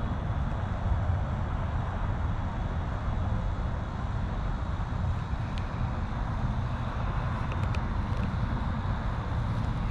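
Steady low outdoor rumble with no speech, with a few faint, short high chirps in the second half.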